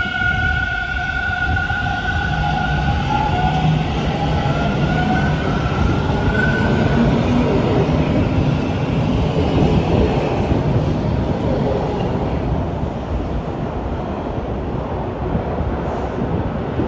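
Bombardier T1 subway train moving through the station: a heavy, steady rumble of wheels on rail. Two high, steady tones sound over it for the first several seconds and fade out about seven seconds in.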